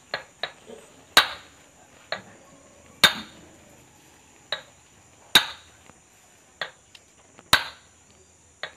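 Hammer tapping a seal-kit part down onto a Sonalika tractor water pump to drive it into place: sharp knocks, a hard one about every two seconds with lighter taps in between.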